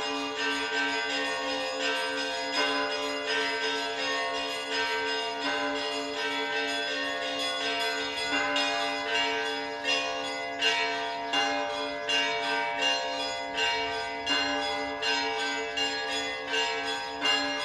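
Russian Orthodox church bells ringing. Smaller bells are struck in quick, uneven succession over the lingering, pulsing hum of a larger bell, and the strikes grow sharper and louder about halfway through.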